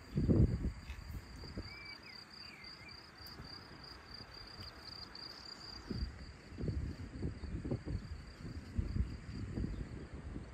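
Outdoor meadow ambience: an insect's steady high-pitched trill, which stops about two-thirds of the way through, under gusts of wind rumbling on the microphone. The gusts are loudest right at the start and come again through the second half.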